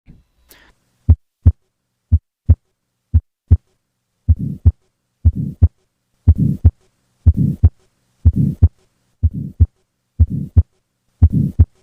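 Heart sounds heard through a stethoscope, about one beat a second. The first three beats are plain lub-dub pairs; from about four seconds in, each beat carries a harsh whooshing murmur filling the gap between the first and second sound, the systolic murmur of tetralogy of Fallot.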